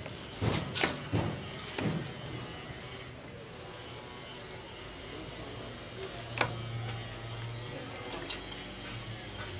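Workshop sounds: a steady low machine hum with sharp metal knocks and clinks, several in the first two seconds and single ones about six and eight seconds in.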